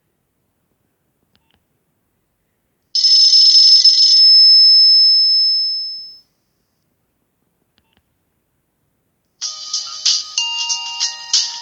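Nokia 6070 mobile phone tones. A short, bright alert tone sounds about three seconds in and rings out, fading away by about six seconds. After a pause, a new ringtone melody of quick, rhythmic notes at several pitches starts near the end.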